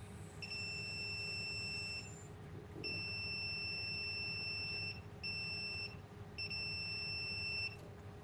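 Digital multimeter's continuity beeper sounding four times, steady high-pitched beeps of uneven length, the longest about two seconds, as the probes make contact on the board.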